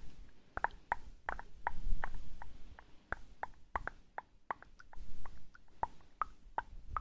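Close-miked wet mouth sounds: a run of quick lip and tongue pops and smacks, about three a second, over a faint low rumble of hands on the microphones.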